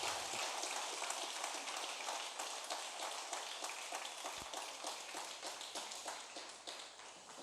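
Congregation applauding: a dense patter of many hands clapping that gradually dies away.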